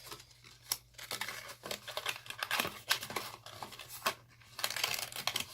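Heavy cardstock being worked by hand: irregular rustling and crackling of stiff paper with many sharp clicks and snaps.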